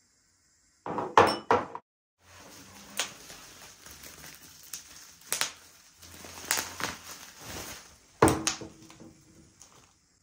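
Plastic bubble wrap rustling and crackling as it is peeled off a glass jug, with scattered small clicks. Sharp clinks and knocks of glassware come about a second in and again near the end.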